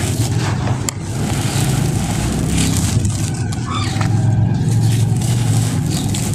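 Dry red sand trickling through fingers and crumbling with a gritty hiss and a few small crunches, over a steady low rumble that is the loudest sound.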